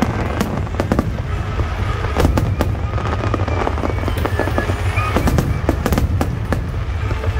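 A fireworks display: many sharp bangs and crackles in quick, irregular succession over a steady low rumble.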